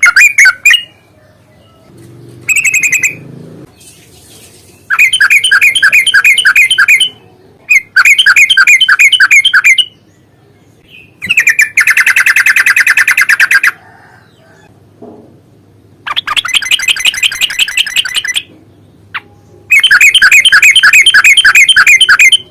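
Trucukan (yellow-vented bulbul) calling in loud, fast trilled phrases, the long rapid trill ('ropel panjang') used as a fighting lure. There are about five bursts of roughly two seconds each, with short pauses between them, and a couple of brief notes near the start.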